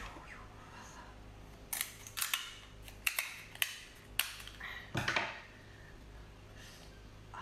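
Scissors snipping through the shell of a cooked king crab leg: a series of sharp cracks in small clusters, about two, three and four seconds in. About five seconds in, the shell cracks loudly as it is broken open.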